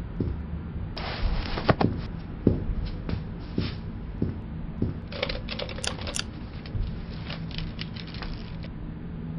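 An irregular run of sharp clicks and taps that starts about a second in and stops shortly before the end, over a low steady hum.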